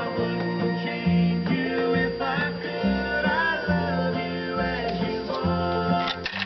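Country song playing: acoustic guitar and plucked strings over a steady bass beat, with a voice singing.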